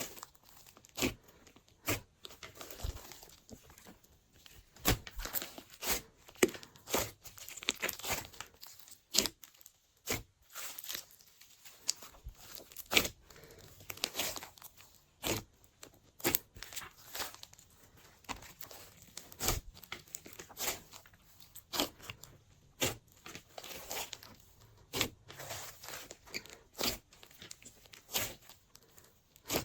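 Glossy slime being kneaded and stretched by hand: sharp sticky clicks and pops at an irregular pace, one or two a second, as air pockets burst in the slime.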